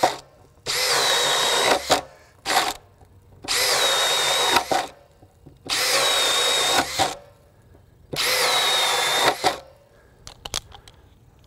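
Makita 40V XGT GPH01 brushless hammer drill-driver in drill mode boring into a lumber board with a 1-inch spade bit: four runs of about a second each and one brief blip, each with a motor whine that dips in pitch as it spins up and then holds steady. The drill runs easily, not strained by the 1-inch bit.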